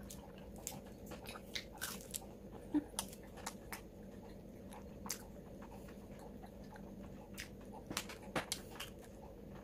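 Close-up eating sounds: biting and chewing waffle-iron-crisped halloumi and eggplant, with irregular crunches and wet mouth clicks. A steady low hum runs underneath.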